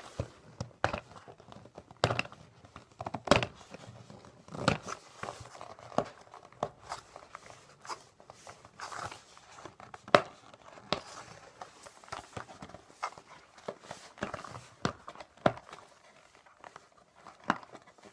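Plastic film on a sealed cardboard pack being pulled and picked at by hand: irregular crinkling and rustling with sharp clicks and taps. The pack is hard to open.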